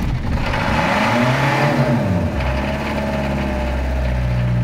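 Citroën C25 van engine that has just caught after a reluctant hot-wired start revs up and back down once, then settles into a steady idle a little after two seconds in.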